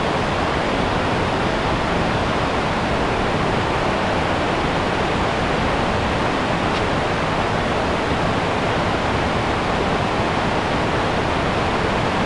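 Whitewater rapids rushing over rocks: a steady, unbroken rush of water.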